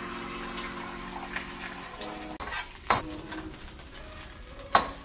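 Metal spatula scraping and clanking against a steel wok as eggs are scrambled, over the sizzle of frying egg. There are two sharp clanks, about three seconds in and near the end.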